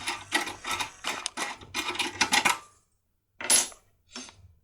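Small metal lockpicking tools clinking and rattling as they are handled: a quick run of clicks for about two and a half seconds, then after a short pause a single brighter metallic clink that rings briefly.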